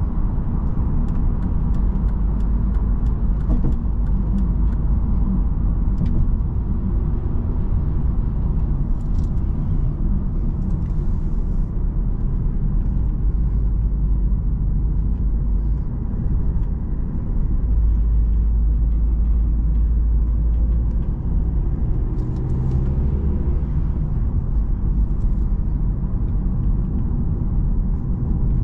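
In-cabin driving noise of a 2010 Volvo S60 at motorway speed: a steady low rumble of tyres, road and engine.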